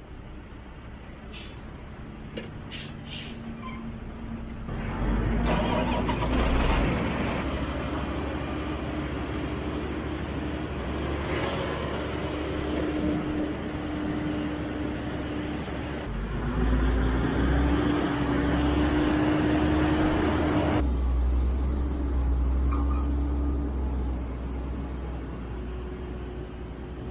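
Heavy diesel engines of a large four-wheel-drive farm tractor and a dump truck running while silage is unloaded at the bunker. The sound grows louder about five seconds in, and a steady engine drone rises in pitch about two-thirds of the way through.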